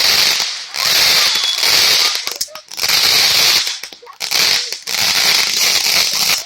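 Consumer fireworks going off: a loud, dense crackling hiss in about five bursts of a second or so each, with short breaks between them.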